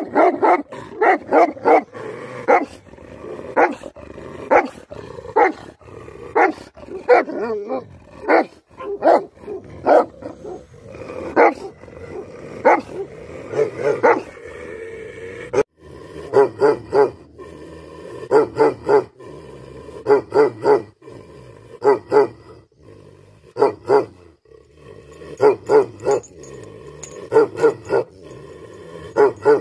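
Tibetan Mastiff barking angrily in a long series of deep barks, many coming two or three in quick succession. About halfway through the barks briefly stop, then start again with a slightly different sound.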